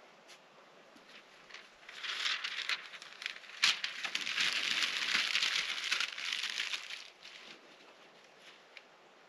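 Crinkling and rustling of packaging being handled, in two spells, with one sharp click about three and a half seconds in.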